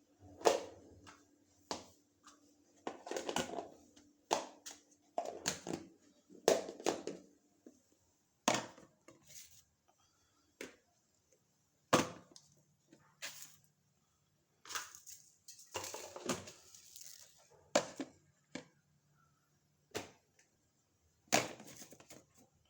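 Kitchen clean-up: irregular clacks and knocks of utensils and stove parts being handled, with short bouts of scraping and rubbing as the gas stove is wiped down.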